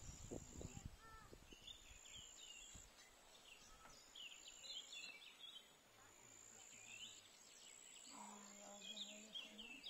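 Quiet garden ambience with small birds chirping and twittering on and off, and a faint high thin tone coming and going. A few soft knocks, hoes striking the soil, in the first second, and a brief low held call near the end.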